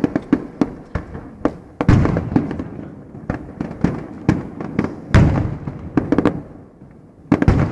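Aerial fireworks going off: a fast, irregular run of sharp bangs and crackles. Heavier shell-burst booms come about two seconds in, about five seconds in and again near the end.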